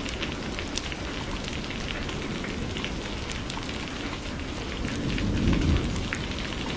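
Steady rain falling, with many separate drops pattering close by. A low rumble of thunder swells about five seconds in.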